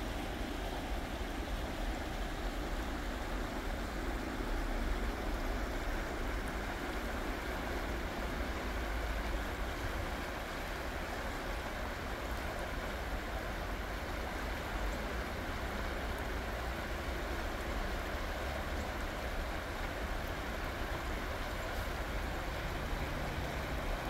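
Creek water rushing steadily over rocks, an even hiss with a low rumble beneath it.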